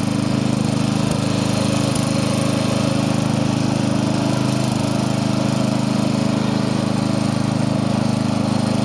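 Riding lawn mower's engine running steadily as the mower drives along, an even drone that holds the same pitch and level throughout.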